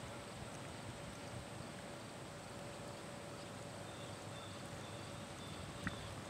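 Soft, muffled hoofbeats of a Paint horse moving under saddle on a sand arena, faint under steady outdoor background noise.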